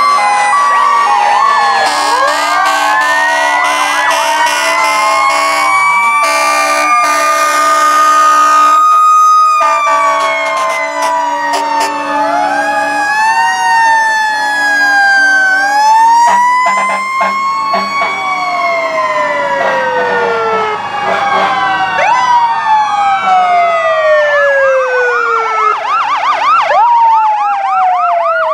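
Several emergency vehicle sirens from passing fire trucks and a police vehicle wail at once, their pitches rising and falling out of step with each other. Steady tones run under them for roughly the first third, and a fast yelp starts near the end.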